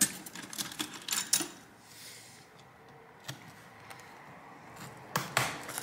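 Small clicks and taps of a thin pry tool being worked into the corner of a laptop's bottom cover, then a couple of sharp clicks near the end as the cover's edge starts to come free.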